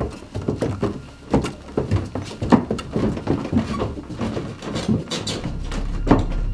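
Footsteps of several people on stairs: irregular knocks, two or three a second. A low steady drone comes in near the end.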